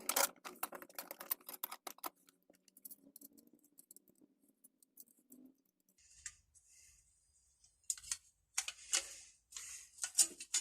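Small metal parts of an Eclipse adjustable saw handle clicking and rattling as they are fitted together by hand: a quick run of clicks over the first couple of seconds, then a quiet spell, then a few more clicks near the end.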